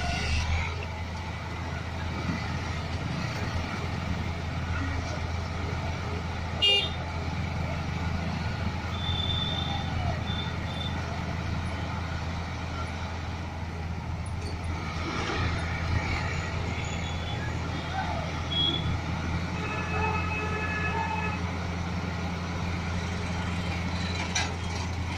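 Steady low drone of a heavy vehicle engine running, with a sharp click about seven seconds in and several short, high horn toots later on.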